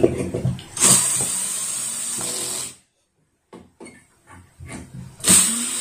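Power drill driving screws in two steady runs of about two seconds each, the second starting near the end, with a few handling knocks before the first.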